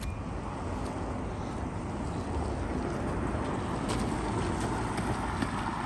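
Car traffic on a wet, slushy street: a steady hiss of tyres and engine that builds over the first couple of seconds and eases slightly near the end.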